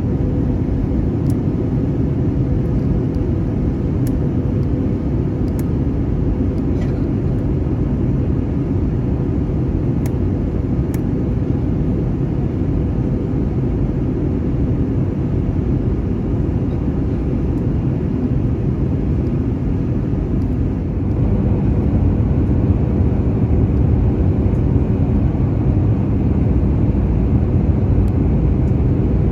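Steady cabin rumble inside an Airbus A321neo airliner, from its CFM LEAP-1A engines and the airflow. It grows a little louder and brighter about two-thirds of the way through.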